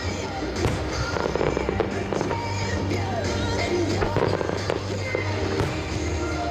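Fireworks bursting in quick succession, with sharp bangs and crackling, over music playing in the background.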